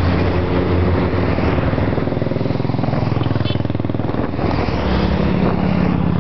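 Motorcycles riding past one after another, their engines running steadily, with the engine note changing as each bike goes by.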